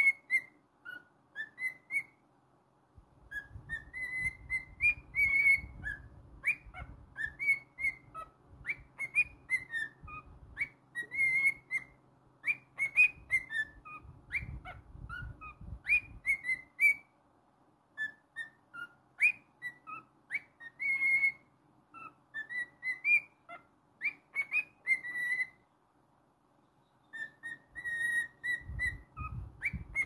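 A cockatiel whistling a tune: phrases of short whistled notes that slide up and down around one pitch, pausing a few times between phrases.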